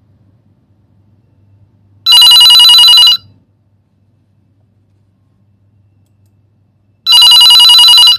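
Telephone ringing for an incoming call: two loud, trilling rings of about a second each, about five seconds apart.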